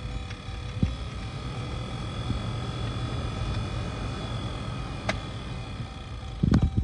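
Cabin ventilation blower of a 2012 Jeep Grand Cherokee running steadily, with a low rumble underneath and a few faint steady tones, while climate-control buttons click softly about three times. A louder, low-pitched sound starts near the end.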